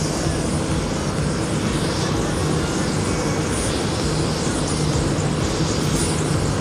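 BETA Technologies ALIA electric airplane flying past: a steady low propeller hum under a broad rushing noise.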